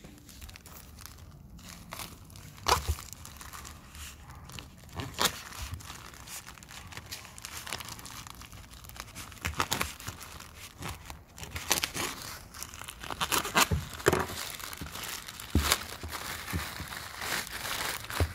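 Plastic courier mailer bag crinkling and rustling as it is handled and torn open, with sharp crackles throughout that come thicker near the end.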